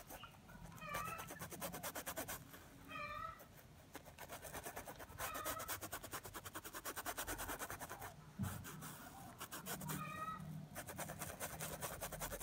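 Faint, quick, even scratching of a fine paintbrush stroking paint onto fabric stretched in a hoop, with four short, high animal calls spread through it.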